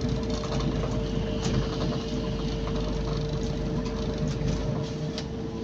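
Bus running, heard from inside the cabin: a steady low rumble with a constant whine, and the body and fittings rattling with quick irregular clicks.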